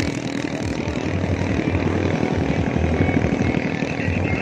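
A small boat's engine running steadily, with a fast, even pulse.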